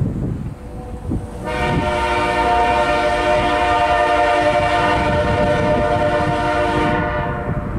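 Air horn of the lead locomotive, CSX C40-8W 7853, sounding one long steady blast of about five and a half seconds. It starts about a second and a half in, over the low rumble of the approaching freight train. The blast warns the grade crossing ahead.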